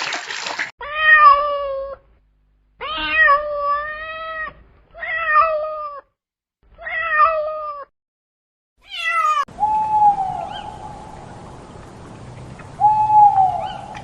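Domestic cat meowing: four drawn-out meows with pauses of silence between them, then after a brief noisy burst two shorter falling meows over a steady background hiss near the end.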